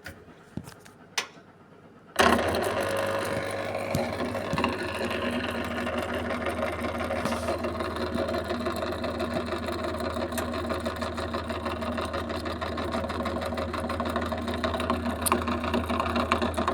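A couple of sharp clicks, then about two seconds in a washing machine's drain pump starts abruptly and runs with a steady low hum and a buzzing rattle. The worn old pump is vibrating, the sign that it needs repair or replacing.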